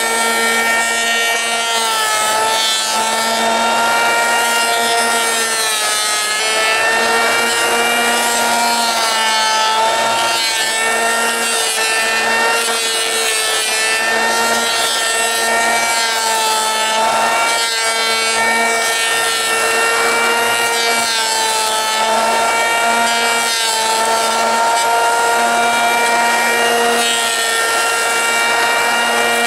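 Electric hand planer running continuously with a high motor whine as it cuts a wide board. The pitch sags slightly every few seconds as the blades take each pass, then recovers.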